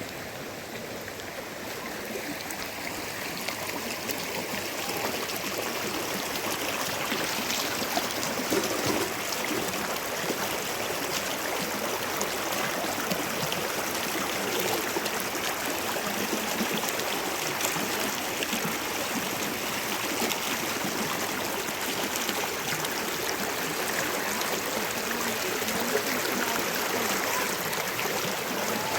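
Steady rushing and spattering of water, swelling over the first few seconds and then holding even.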